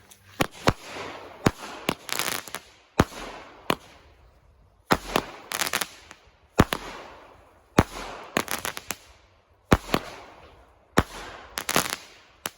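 A small 9-shot consumer firework cake firing its shots one after another, about one a second. Each is a sharp crack with a fading crackling hiss after it.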